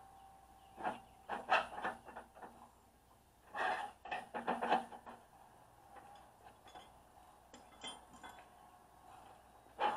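Steel parts clinking and clanking as tines are worked loose and pulled from a flail mower's housing, in short clusters of sharp metallic clicks about one second in, around four seconds in and again at the end.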